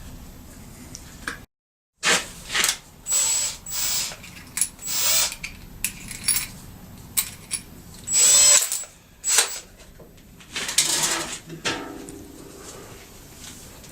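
A power drill run in a series of short on-off bursts, boring a hole through an aluminium chainsaw side cover.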